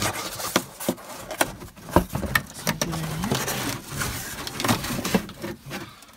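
Cardboard packing being handled and pulled out of a new toilet's box: irregular rustling and scraping with many small knocks and clicks.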